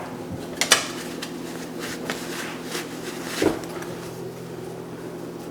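A few light clicks and knocks from handling small hardware while fitting an outlet cover plate, the loudest about three and a half seconds in, over a steady low hum.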